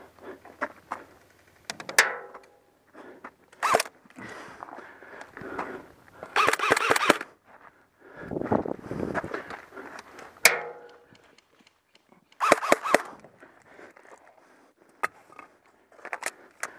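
An airsoft player moving about during a match: footsteps and rustling gear, broken by scattered sharp clicks and cracks and several short bursts of noise, the loudest about a third and three quarters of the way through.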